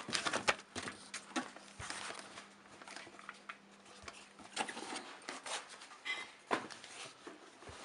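Packaging rustling and crackling, with scattered light clicks and knocks, as a double-DIN car radio is lifted out of its box and unwrapped.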